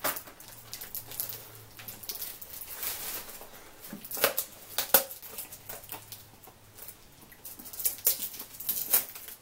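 Cellophane wrapper crinkling and cardboard box rustling as a boxed chocolate assortment is unwrapped and opened by hand. It comes as irregular small crackles, with a few sharp ones about four and five seconds in and near the end.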